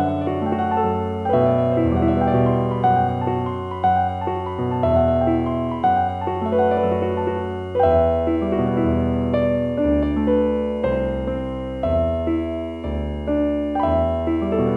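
Slow piano music: held notes and chords struck about once a second over sustained low bass notes.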